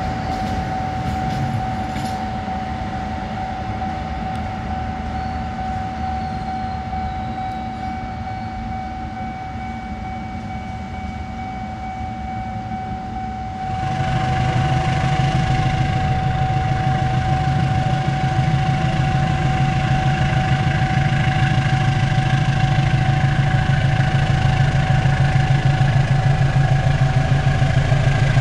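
Rumble of a passenger train pulling away down the track, slowly fading, under a steady high whine. About halfway through the sound changes suddenly to a louder, steady low engine drone of a heavy engine running close by.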